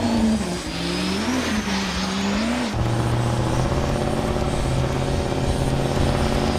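Turbo-diesel pickup truck engine revving, its pitch rising and falling, with a faint high whistle climbing above it; about two and a half seconds in it changes abruptly to a steady, even engine drone.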